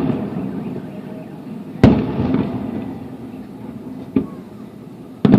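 Aerial fireworks shells bursting over a river: a loud boom about two seconds in, a smaller crack near four seconds and another boom at the very end, each followed by a long echoing rumble.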